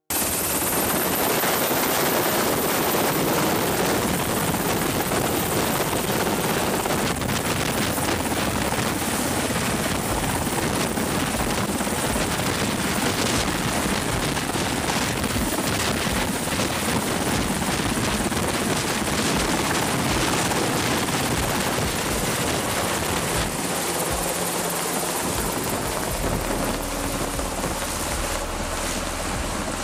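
Navy Seahawk helicopter's rotor and turbine noise, a steady loud rush with a thin high whine over the first few seconds.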